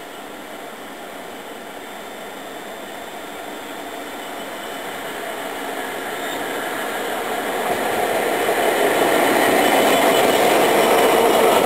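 Class 66 diesel-electric freight locomotive, with its twelve-cylinder two-stroke diesel, approaching and passing with a container train: a steady engine and rail noise that slowly grows, then gets much louder over the last few seconds as the locomotive goes by.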